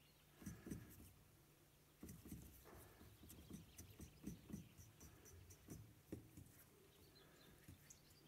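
Faint scrubbing and dabbing of a paintbrush mixing watercolour in the wells of a paint palette, in short irregular strokes: a brief flurry just after the start, then a longer run from about two seconds in.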